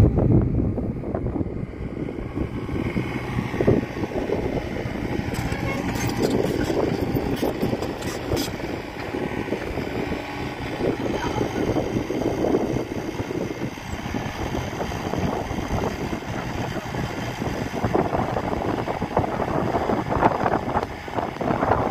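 Hyundai R35Z-7A mini excavator running steadily while it digs a pit in stony ground. Sharp clicks and knocks of rock under the bucket come between about five and eight seconds in.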